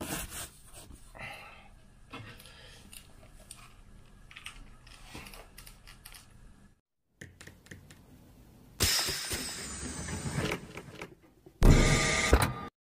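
Soft clicks and rustles of over-ear headphones being handled and put on. Then a loud noisy rush starts about nine seconds in, and a short, loud, deeper burst follows near the end as the channel's intro title comes up.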